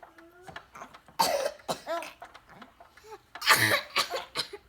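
A boy coughing in two bouts: a loud cough about a second in with smaller ones after it, then a louder cough past three and a half seconds in followed by a couple more.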